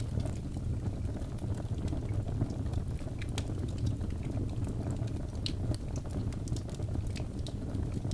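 Wood fire in a fireplace crackling: many small, irregular pops and snaps over a steady low rumble.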